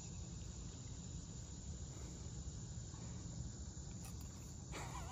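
Faint, steady chorus of evening insects, crickets by their sound, over a low steady rumble.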